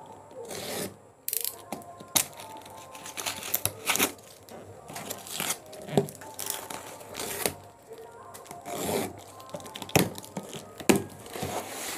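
Box cutter blade slitting the packing tape on a cardboard box, then the tape tearing and the cardboard flaps being scraped and pulled open, heard as a string of short, irregular rasps and cracks.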